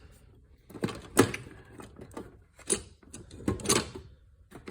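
Pliers being handled and set down in a metal tool box drawer: a series of irregular clacks and knocks, bunched together near the end.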